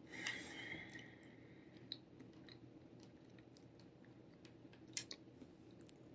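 Faint sounds of eating a bite of cheesecake: a short squeaky scrape in the first two seconds, then quiet chewing with a few light clicks.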